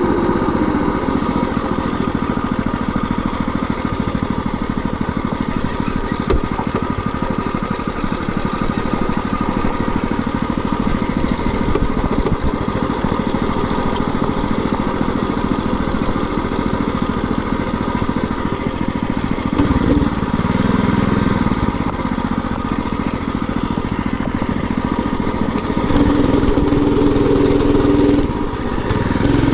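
A minibike's 212cc single-cylinder four-stroke engine running under load while being ridden. Its note shifts about twenty seconds in, gets louder and higher for a couple of seconds from about twenty-six seconds in, then drops briefly near the end.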